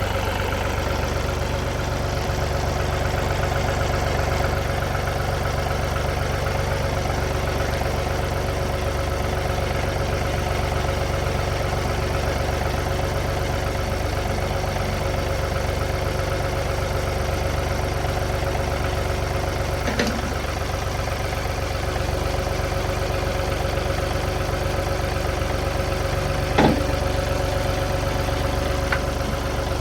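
John Deere 2032R compact tractor's three-cylinder diesel engine running steadily near idle, with a couple of short knocks about two-thirds of the way through and near the end as the front loader is worked off its mounts.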